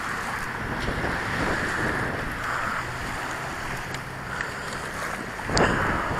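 Wind rushing over the microphone, with small waves washing at the shoreline; a single sharp click about five and a half seconds in.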